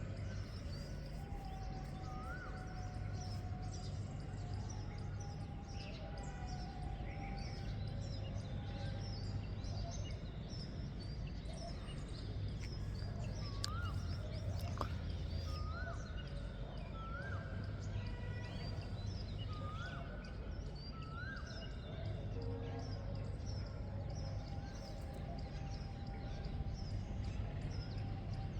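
Several birds calling and singing at once, short chirps and a rising whistled note repeated every second or two, over a steady low rumble.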